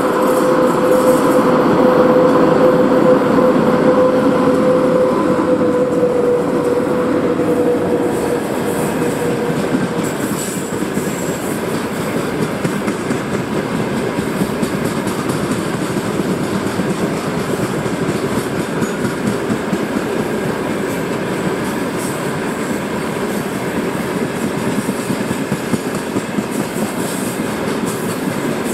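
VL80K twin-section electric locomotive passing at the head of a freight train, a steady whine from it dipping slightly in pitch and fading out in the first ten seconds. After that the hopper wagons roll past on the rails with a steady, even noise.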